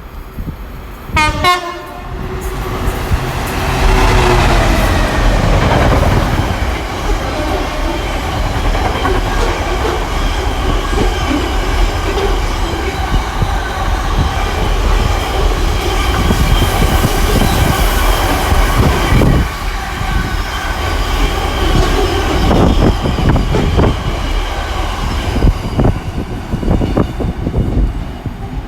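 Class 66 diesel freight locomotive sounds its horn briefly about a second in, then passes with its engine note falling in pitch. A long train of heavy freight wagons follows, rumbling and clattering over the rail joints.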